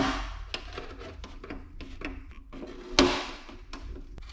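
Small hex driver clicking and scraping against screws as they are backed out of an RC car's plastic rear spoiler, with two sharper knocks at the start and about three seconds in.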